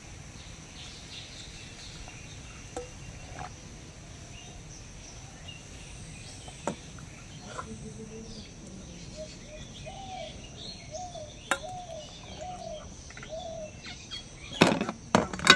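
Outdoor ambience with a steady high insect drone, and a bird calling a run of about six short repeated notes in the second half. A few faint clicks of fingers against a steel bowl, then about a second before the end a burst of loud slurping as the soaked rice and its water are drunk from the tilted steel bowl.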